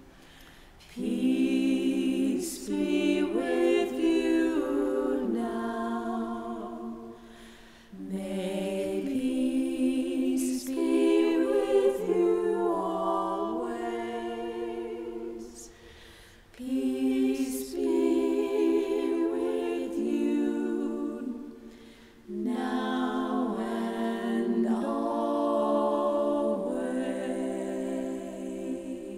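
A women's vocal quartet singing a cappella in harmony, in four long phrases with short breaks between them; the last phrase fades out near the end.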